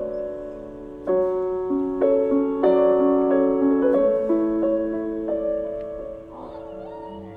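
Background piano music: slow sustained chords struck every second or so.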